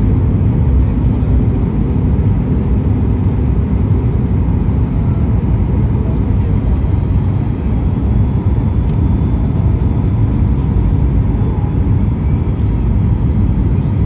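Steady low-pitched cabin noise aboard a Boeing 737 MAX 8-200 on approach, heard from a window seat beside the wing. It is the sound of its CFM LEAP-1B turbofan engines and the air rushing past the fuselage.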